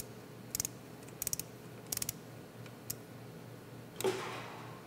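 Ratchet of a hand torque wrench clicking in short runs of a few quick clicks, about five runs a little over half a second apart, as a drain-screen plug is wound into the engine case. Near the end there is a brief scuffing noise.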